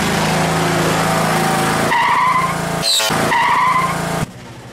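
An engine running steadily, with two short high squeals about two and three and a half seconds in. The sound drops sharply to a much lower level near the end.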